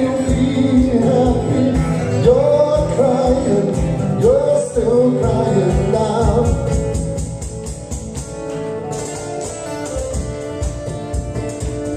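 Live male singing through a PA with instrumental accompaniment: the voice holds and slides between long notes for the first six seconds or so, then drops out and the accompaniment carries on alone with a steady beat.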